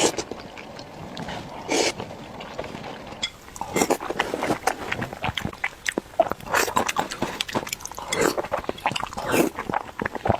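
Close-up eating sounds of a person chewing soft pig brain in red chili oil: wet smacking and many short clicks of the mouth, thickening from a few seconds in.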